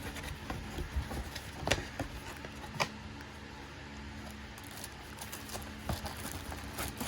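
Cardboard box and packed parts being handled and unpacked: scattered light taps and rustling, with a few sharper clicks.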